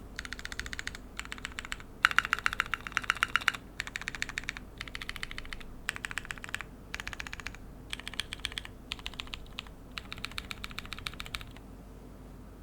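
Phantom 65 mechanical keyboard with lubed and filmed AEBoard Naevy switches on a POM plate, ABS keycaps and no foam, being typed on in quick runs of keystrokes with short pauses between them. The typing stops near the end.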